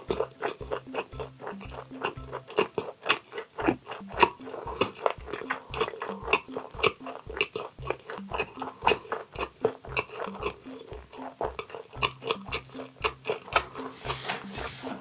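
Close-miked chewing and biting of boiled baby octopus with roe, many crisp wet bites and chews, over background music with a steady beat.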